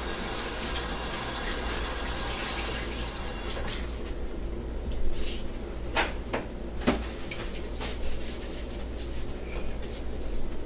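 Water running from a tap as hands are washed, a steady hiss that shuts off about four seconds in. A few light knocks follow.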